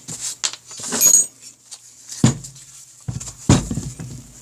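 Metal tools and parts being handled on a workbench: irregular clinks and knocks, some with a short metallic ring, a heavier knock about two seconds in and a clattering rattle a little over a second later.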